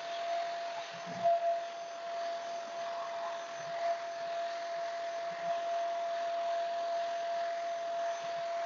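Hitachi drum vacuum cleaner running steadily, a constant motor whine over the rush of suction, with a soft knock about a second in.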